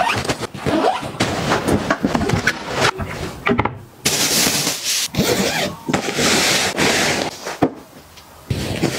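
Zipper drawn along a fabric quilt storage bag, with fabric rustling and handling clicks. This gives way about four seconds in to a steady scuffing rustle of cloth being moved.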